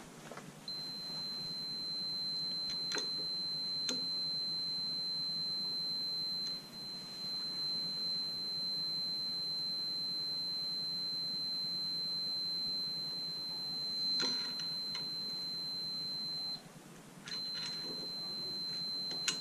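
Continuity tester clipped across an outboard's breaker points sounding a steady high-pitched beep, the sign that the points are touching and closing the circuit to ground. The beep cuts out about three seconds before the end and comes back a second later, with a few light handling clicks.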